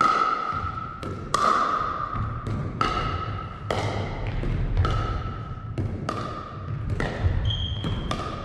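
Pickleball paddles striking a plastic ball in a rally, about one sharp pock a second, each hit ringing on in a large gymnasium.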